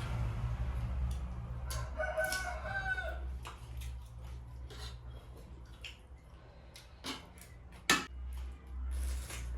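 A rooster crowing once, about two seconds in, among scattered sharp clicks.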